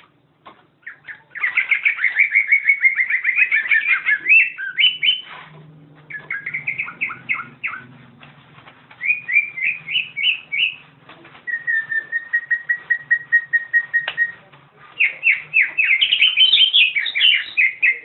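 Greater green leafbird (cucak hijau) singing in five loud bursts of rapid, chattering notes with short pauses between them, one run near the middle being a string of even, steady whistled notes.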